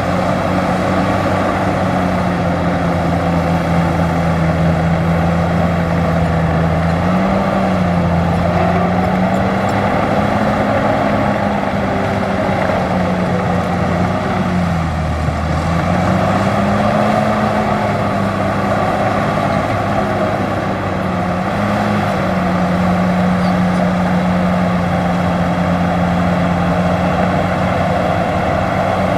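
Large bulldozer's diesel engine running steadily under load while pushing dirt. Its pitch sags and recovers a few times, dipping most about halfway through.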